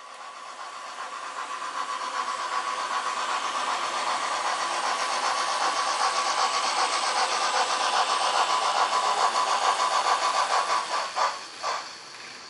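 Engine sound from a Märklin model locomotive's sound decoder, played through its small built-in speaker. It starts up, builds over about two seconds and then runs with a fast, even pulse, cutting off near the end after a couple of clicks.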